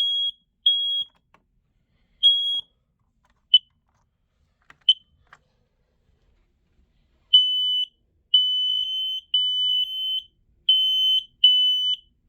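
Smoke alarm being tested, its high-pitched horn beeping. First come a few separate short beeps and two brief chirps, then about seven seconds in it settles into a run of repeated longer beeps as the alarm sounds.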